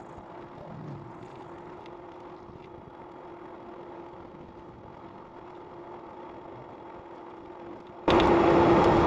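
Electric bike riding along with a steady motor whine over a low rush of wind and tyre noise. About eight seconds in, loud wind noise on the microphone comes in suddenly and drowns it.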